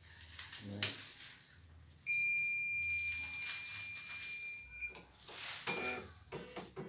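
CNY E900 embroidery machine being switched on: a click, then a steady high electronic beep lasting nearly three seconds, followed by a short spell of mechanical clicking and rattling from the machine.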